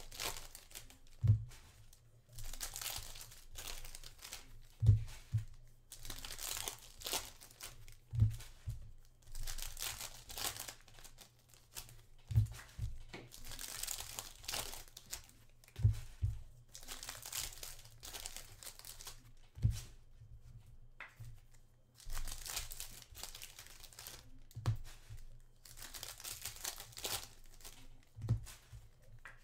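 Foil wrappers of Panini Prizm basketball card packs being torn open and crinkled by hand, again and again. A short dull knock comes every three to four seconds amid the rustling.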